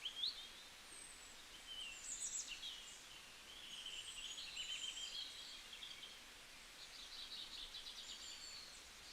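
Songbirds calling and singing: short chirps and whistled phrases that overlap, with a rapid run of repeated notes near the end.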